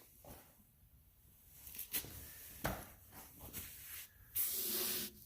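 Light scattered knocks and clicks, then a brief rough scraping rub about four and a half seconds in. This is wood being handled while the bandsaw mill is stopped, not cutting.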